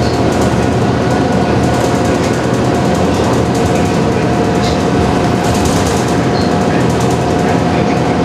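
Transit bus heard from inside the cabin while driving: a steady engine and drivetrain drone with a constant whine, road and tyre noise, and light rattles and ticks from the cabin.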